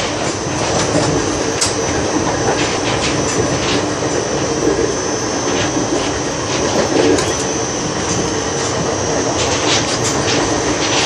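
Indian long-distance passenger train coach in motion: a steady loud rumble and rattle of the carriage running on the rails, with scattered sharp clicks.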